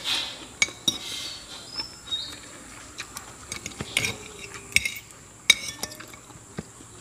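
Metal spoon and fork clinking and scraping against a ceramic plate while eating fried rice, with several sharp separate clinks.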